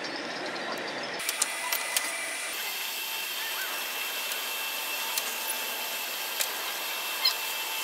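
Pedal boat's pedal crank and paddle drive working as it is pedalled: a steady mechanical whir and churn, with a few sharp clicks and knocks, several close together about a second in.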